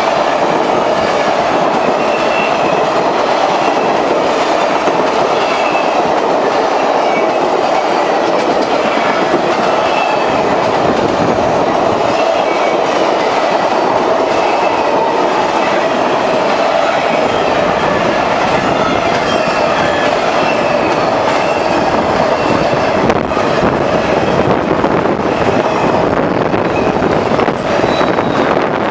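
Ringling Bros. and Barnum & Bailey circus train cars rolling past with steady, loud wheel-on-rail noise and clickety-clack over the rail joints. There are faint high squeals from the wheels, and sharper clacks near the end as flatcars carrying trailers go by.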